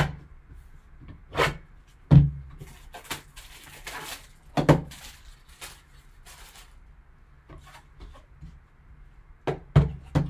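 Handling noise from opening a shrink-wrapped card box: a handful of sharp knocks and thuds as the box and a folding knife are moved and set down on the table. About a quarter of the way in comes a couple of seconds of crinkly rustling as the plastic wrap is pulled off.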